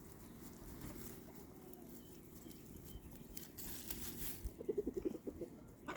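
Chickens clucking softly among themselves, with a brief rustle, then a quick run of short low clucks about five seconds in.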